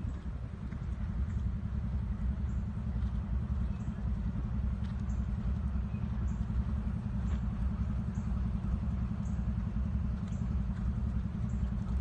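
Horse cantering on sand footing: faint, fairly regular hoofbeats under a continuous low rumble that is the loudest sound.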